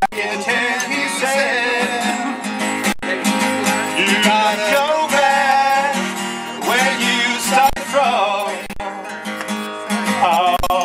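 Country song with acoustic guitar and a singing voice.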